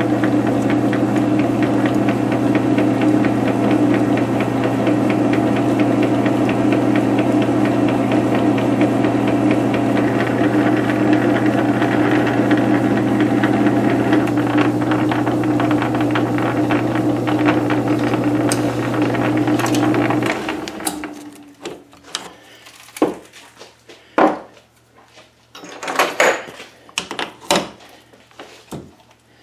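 South Bend 13-inch lathe running with a steady hum while a 3/8-inch reamer is fed from the tailstock into the spinning workpiece. About two-thirds of the way through, the lathe shuts off suddenly, followed by scattered metallic clicks and knocks of tooling being handled.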